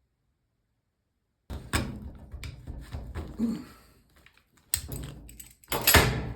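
A run of knocks and clunks from things being handled and struck, starting about a second and a half in. A sharp thunk near the end is the loudest.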